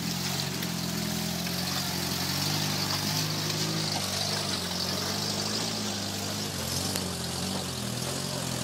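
Off-road truck engine running at low, fairly steady revs: a low drone that rises and falls slightly in pitch, with a steady hiss above it.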